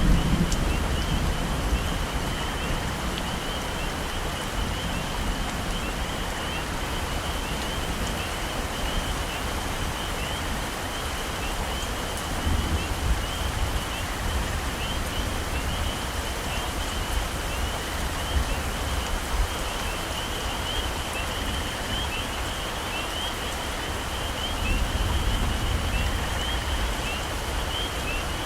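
Heavy rain falling steadily on tropical forest foliage. Low rumbles of thunder swell up at the start, about twelve seconds in and again near the end, under a steady high chirping chorus.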